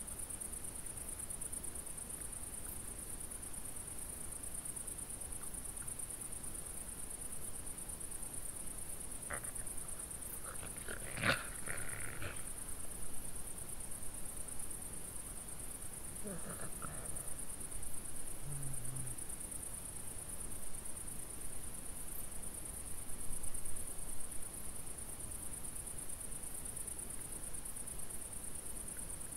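Night insects chirring, a steady high-pitched chorus. A brief, louder sound comes about eleven seconds in, and a couple of fainter short sounds follow a few seconds later.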